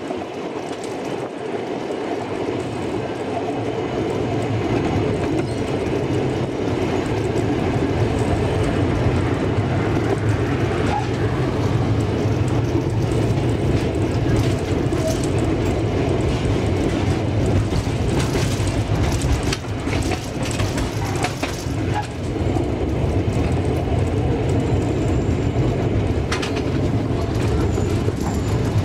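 Narrow-gauge (785 mm) train running along the track: a steady rumble of wheels on rail, with a run of clicks and knocks about two-thirds of the way through.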